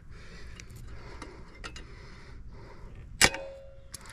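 Small clicks and scuffs of a metal hand tool being handled, then one sharp metallic clink about three seconds in that rings briefly, like a socket wrench striking or seating on a nut.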